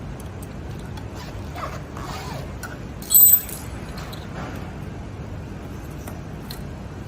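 A brief, loud, high-pitched squeak about three seconds in, over steady low background noise.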